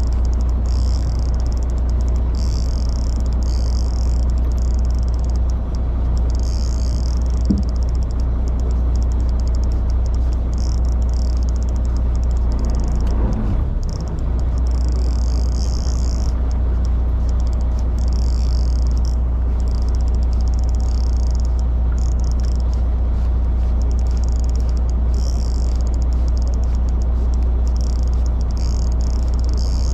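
Steady low drone of a fishing boat's engine, with a high whirring that comes and goes about once a second or so, fitting a small fishing reel being cranked as a tai rubber jig is reeled in.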